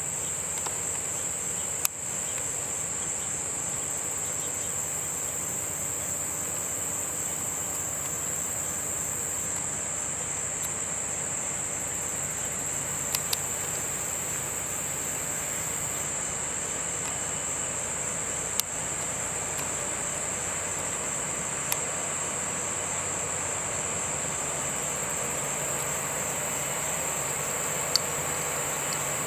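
Steady, high-pitched shrilling of an insect chorus in the riverbank trees, unbroken throughout. A faint low drone from the passing towboat's engines lies beneath, and a few sharp clicks come through it.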